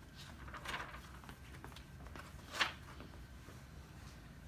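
Pages of a picture book being turned, two soft papery rustles.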